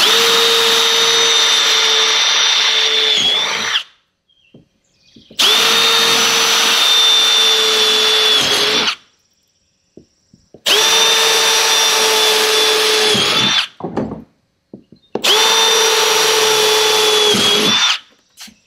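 Electric drill boring holes into a kayak's plastic hull: four separate runs of about three seconds each, every one spinning up to a steady whine and then stopping.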